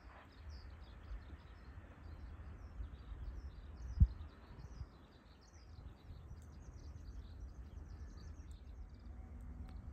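Small birds chirping repeatedly over a low, uneven outdoor rumble, with a single sharp thump about four seconds in.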